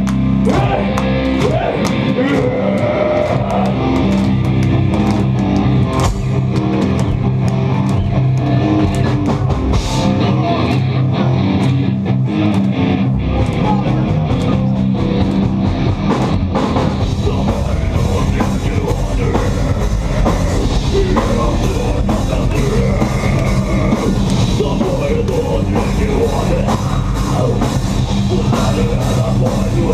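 A live rock band plays loudly, with distorted electric guitars and a drum kit. The deep bottom end drops out for a few seconds around ten seconds in, then the full band comes back in.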